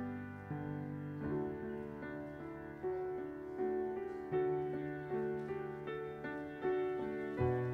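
Piano playing slow, gentle chords in a steady pulse, a new chord struck about every three-quarters of a second and left to ring.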